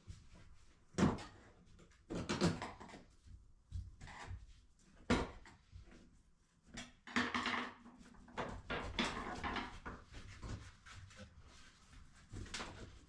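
A bathroom sink and vanity being worked loose by hand: irregular sharp knocks and clunks in the first half, then longer rough scraping and rattling noises.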